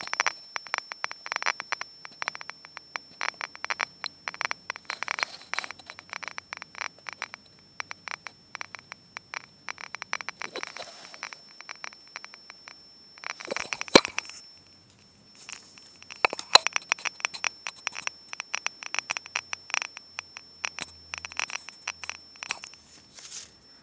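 Clicks from a homemade scintillation radiation detector through a small speaker: irregular, random clicks, many a second, counting natural background radiation. A faint steady high whine runs under them, and a couple of louder knocks fall near the middle.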